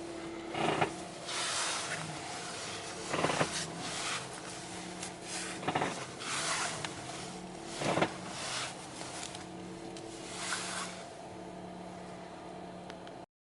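Toyota Voxy's steering making repeated creaking noises as the steering wheel is turned, about eight irregular bursts over a steady hum from the idling car: the strange noise that shows up when the car is cold on chilly mornings.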